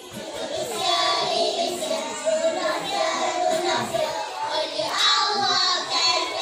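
A group of young children singing a Malay song together, their voices carrying the melody.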